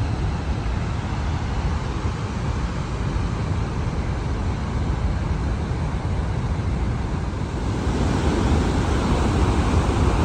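Steady roar of the waterfall's falling water and spray, with wind buffeting the microphone in a heavy low rumble; it grows louder about eight seconds in.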